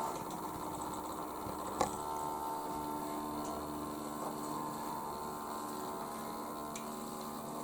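Steady hum of a Hornby RailRoad Class 08 OO gauge model locomotive's electric motor running while its wheels slip under a train too heavy for it, with one short click about two seconds in.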